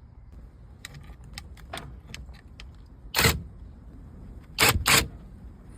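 Metal hand tools clinking and clanking: a run of light clicks, then a loud rattle about three seconds in and two heavy knocks near the end.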